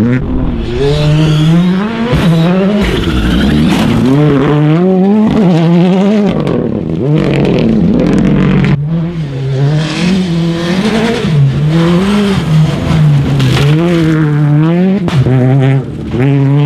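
Rally cars driven hard on a loose gravel stage, one after another. Their engines rise in pitch and drop back again and again as the drivers shift gears and lift off, with sharp clicks of gravel and tyre noise under the engine sound.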